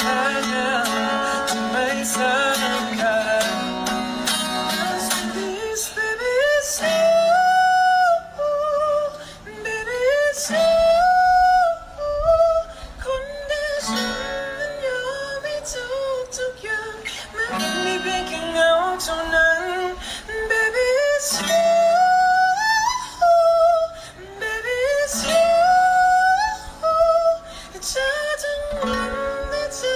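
A man singing while strumming an acoustic guitar, in repeated phrases that rise and hold high notes.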